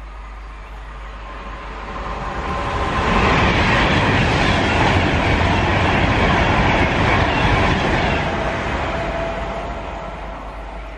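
British Rail Class 390 Pendolino electric train passing at speed over a crossover, wheels and air rushing with clatter from the points. It swells over about two seconds, stays at its loudest for about five, then fades away.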